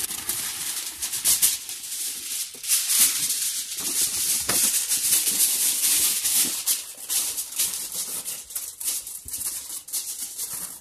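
Reynolds Wrap aluminum foil crinkling and rustling as it is pulled off the roll and pressed down over a plastic tub.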